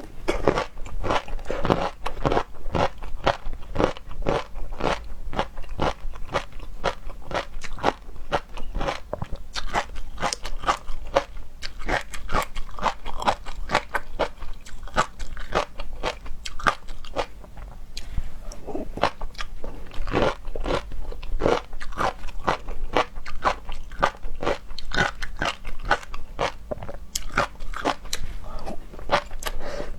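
Close-miked mukbang eating: a person biting and chewing seafood, with continuous crunching and clicks, several a second.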